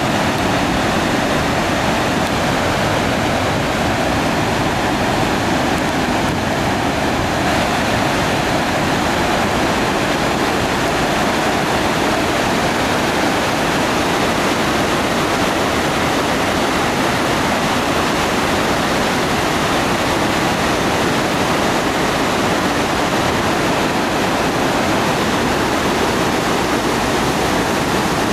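Loud, steady rushing of floodwater pouring out of the arched outlet tunnel of a reservoir's bellmouth ('plughole') spillway into a stone-walled channel. The reservoir is full and overflowing down the spillway.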